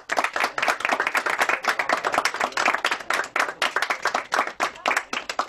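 Audience applauding: many hands clapping fast and irregularly, thinning out near the end.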